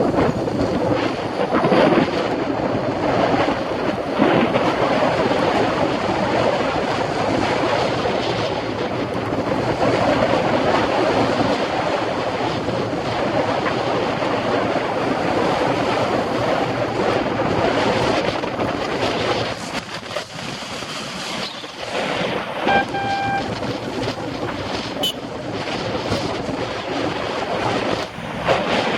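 Steady wind rush on the microphone of a camera on a moving bicycle, with traffic underneath. About 23 seconds in, one short horn blast sounds.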